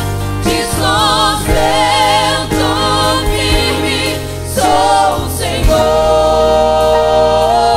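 Live gospel worship song: a small mixed vocal group singing in Portuguese in harmony with vibrato, over a band with steady low bass notes. The voices hold one long note over the last couple of seconds.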